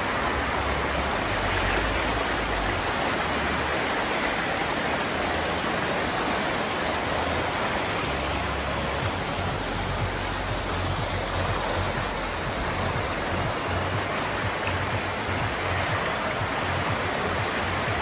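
River water rushing steadily, with a low rumble that comes and goes underneath.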